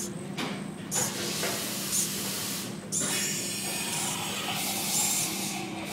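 Small hobby servo motor whirring in bursts as it turns back and forth on command.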